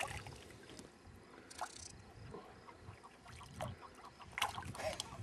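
A hooked fish splashing at the water's surface as it is reeled in beside the boat: a few short, separate splashes over a faint low rumble.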